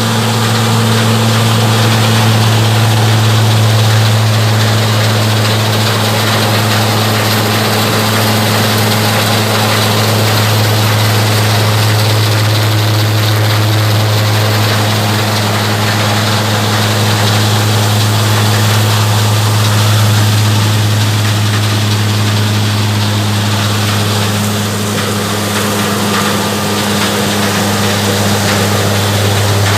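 Hasatsan H 900 Typhoon orchard blower running: a steady, loud engine hum under a broad rush of blown air.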